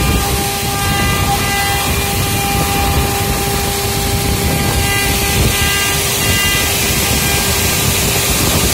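CNC router's water-cooled spindle running steadily with the bit cutting a relief into a board: a steady whine over cutting noise, with higher tones that come and go twice.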